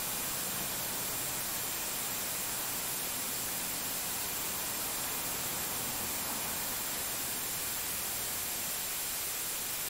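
Steady hiss, like static, with a faint high whine; no horn blast is heard.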